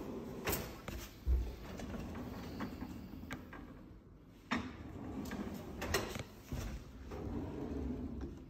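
Kitchen pull-out drawers being opened and closed one after another, rumbling on their runners, with several sharp clicks and knocks as they stop; the heaviest thump comes about a second in.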